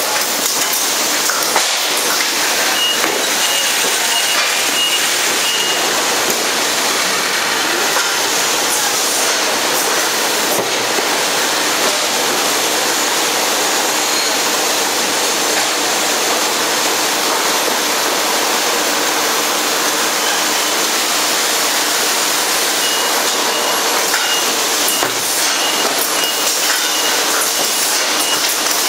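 Machinery of a juice filling production line running: a loud, steady wash of mechanical noise and hiss. Twice, a high electronic beep pulses a few times a second for several seconds.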